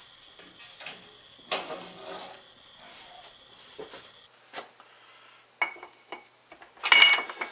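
Metal clatter and clicks as a toaster oven is opened and its rack handled, then a few sharp metallic clinks with a short ring near the end as a heated steel ring gear is set down over a differential carrier.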